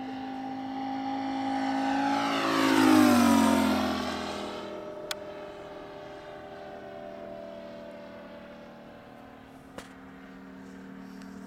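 Moki 180 radial four-stroke engine of a quarter-scale RC Yak-11 model plane on a flyby: the steady engine drone swells to its loudest about three seconds in, its pitch drops sharply as the plane passes, then it fades to a distant steady drone as the plane flies away.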